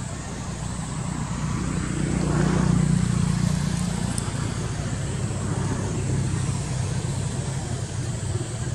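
A motor vehicle's engine passing, growing louder to a peak about three seconds in and then easing back to a steady low hum.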